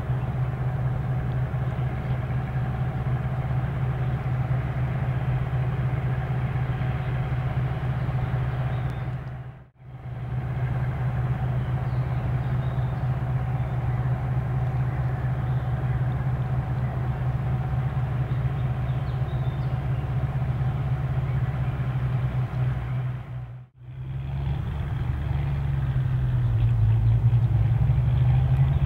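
Airbus H145 twin-turbine police helicopter running on the ground: a steady low hum with a steady higher whine. It cuts out briefly twice and grows a little louder near the end.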